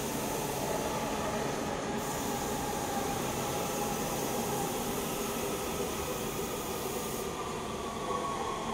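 Metro B Line subway train running past the underground station platform: a steady rumble of wheels on rail with a high whine over it.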